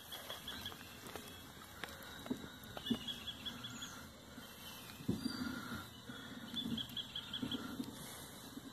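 Soft irregular water sloshing and small splashes as a hand holds a caught tabarana in shallow river water to revive it. A short run of high chirps from a calling creature repeats every three to four seconds in the background.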